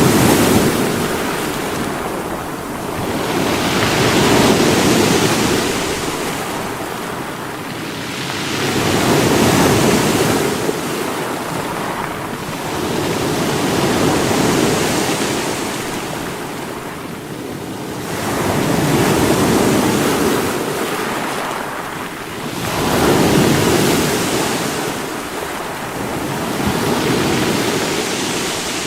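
Sea waves breaking against rocks, a surge of surf about every four to five seconds, each swelling and then washing back.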